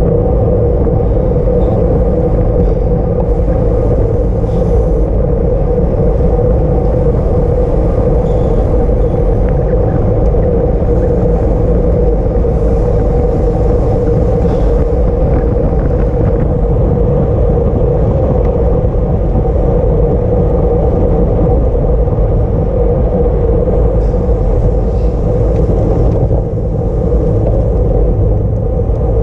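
Steady wind roar on the microphone of a camera riding along in a bicycle race at speed, with a constant hum from the moving bike. It runs unbroken throughout.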